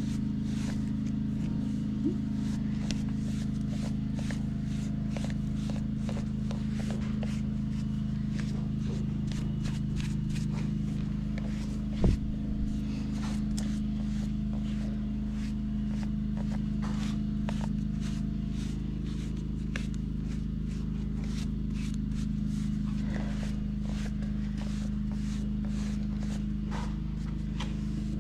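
A horse being groomed by hand: short, irregular brushing and scratching strokes, heard over a steady low hum. One sharp knock comes about twelve seconds in.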